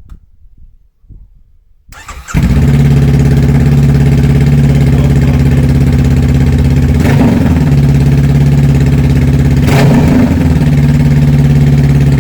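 A 2023 Honda CB500F's 471 cc parallel-twin engine is started with no exhaust fitted, open at the header ports: it cranks briefly and catches about two seconds in, then idles steadily and very loud. The idle is broken twice by a brief sharp crack.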